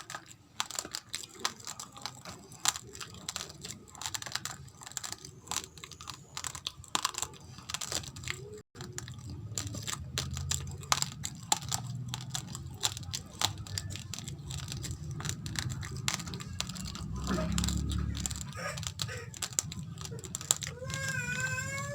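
Raw rice grains crunched and chewed close to the microphone: a fast, irregular run of sharp cracks. A low hum sits under it from about nine seconds in, and near the end a short wavering high-pitched call is heard.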